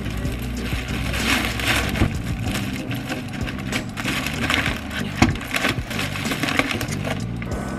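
Thin plastic carrier bag rustling and crinkling in irregular bursts as it is handled, with one sharp click about five seconds in.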